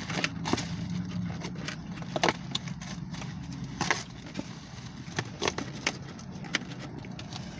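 Takeout food packaging being handled and rustled: scattered crinkles and sharp clicks, irregular, over a steady low hum inside a car.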